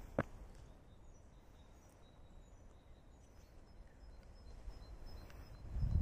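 Quiet woodland ambience with faint, distant bird calls as short high notes through the middle. A low rumble builds near the end.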